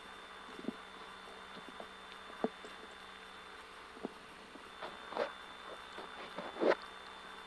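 Inside a rally car's cabin, waiting before the stage start: a steady low hiss with a faint steady hum, broken by scattered small clicks and knocks, the loudest a little before the end.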